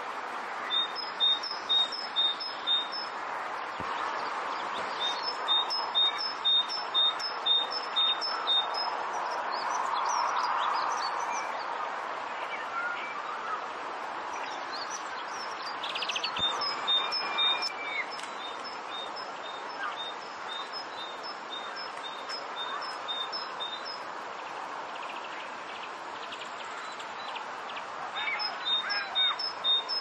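A small songbird singing a repeated two-note phrase, high then lower, about four times a second, in runs of a few seconds with pauses between, over a steady background hiss.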